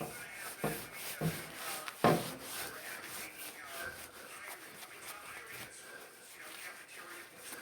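Hand scrubbing on a hard surface in short, repeated strokes, with a few knocks in the first two seconds.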